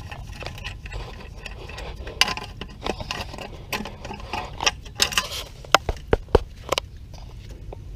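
Irregular sharp metallic clicks and taps from wires and a steel armored flexible conduit fitting being handled against a sheet-metal electrical box, with a run of louder knocks in the second half, over a steady low rumble.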